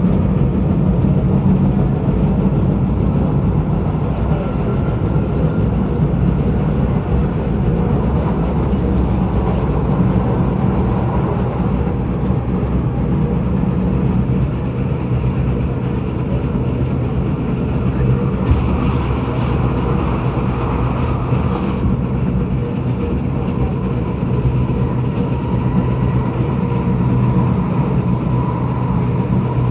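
Kawasaki-Nippon Sharyo C751B metro train heard from inside the carriage, running along the track with the thunderous pounding of flat-spotted wheels over a steady low rumble. A faint whine comes in near the end.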